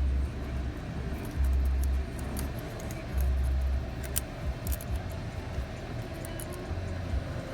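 Small plastic clicks and rattles of a steering-wheel wiring connector being fumbled at by hand, with bouts of low handling rumble on a hand-held phone microphone and a faint steady hum under it.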